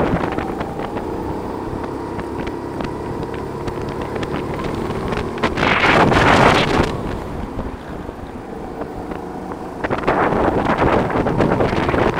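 Go-kart engine running under way, picked up by an onboard camera. Gusts of wind noise hit the microphone about six seconds in and again near the end.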